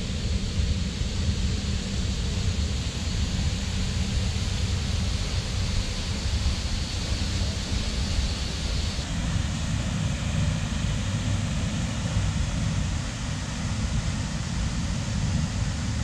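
Waterfall rushing: a loud, steady roar of falling water with a heavy low rumble. A thin, steady high tone sits over it for the first half, and the sound's character shifts slightly about nine seconds in.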